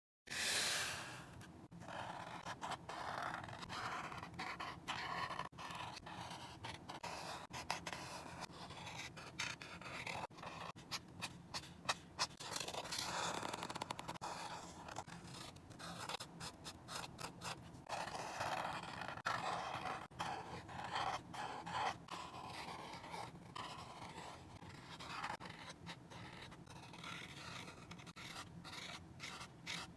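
A drawing tool scratching and rubbing across paper in quick, irregular strokes, with many short ticks as it touches down and lifts.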